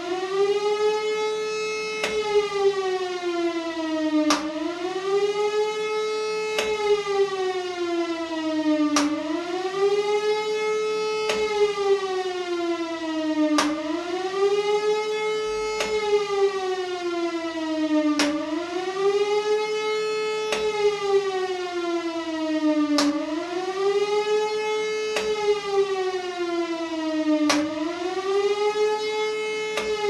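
Siemens-Schuckert E57 electric motor siren sounding an undulating warning wail: the pitch climbs, holds briefly at the top, then sinks, about every four and a half seconds. A sharp click comes at each turn of the pitch, about every two and a quarter seconds.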